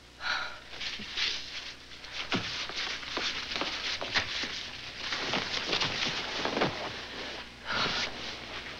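Cloth rag rubbed over hands, rustling and scraping, mixed with shuffling footsteps on a hard floor: a dense run of short scuffs with no let-up.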